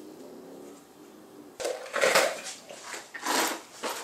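Clattering rattle of small metal valve-cover nuts being handled in a plastic tub, several bursts starting about one and a half seconds in.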